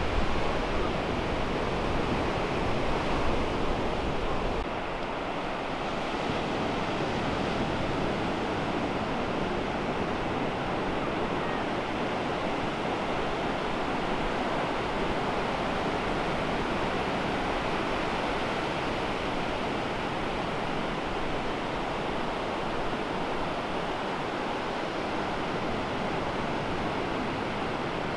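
Ocean surf breaking and washing up a sandy beach, a steady rush of waves. A heavier low rumble eases off about four seconds in.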